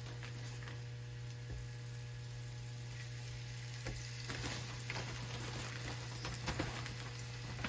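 Cornstarch-coated beef pieces frying in hot vegetable oil in a skillet: a steady sizzle that grows fuller, with scattered crackles, from about four seconds in. A steady low hum runs underneath.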